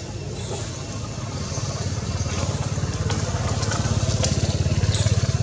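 An engine running with a low, fast-pulsing rumble that grows steadily louder toward the end.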